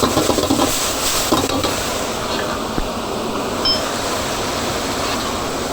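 Steady hiss of cooking at a street-food stall, with clinks of pots and utensils in the first second or so and a brief high beep near the middle.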